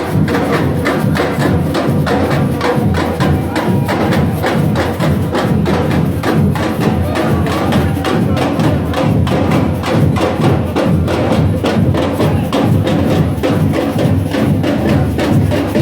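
Loud music with prominent percussion keeping a steady, fast beat.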